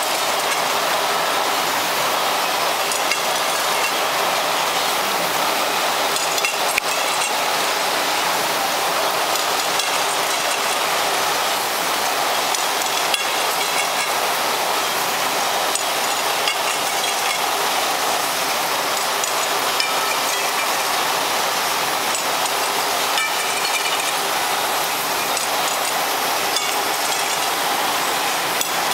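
Glass vial forming machine running: a steady hiss with light mechanical clicking and clinking scattered through it.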